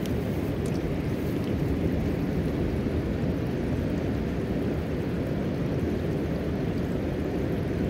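Steady, even rush of moving water, deep and unbroken, with no distinct splashes.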